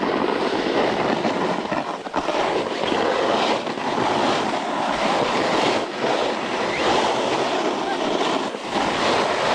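Snowboard sliding down a snowy trail: a steady hiss and scrape of the board's base and edges on the snow, with wind buffeting the helmet-mounted microphone.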